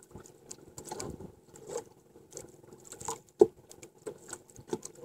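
Scattered light taps and clicks with water lapping around a small wooden outrigger canoe while a handline is worked, with one sharper knock about three and a half seconds in.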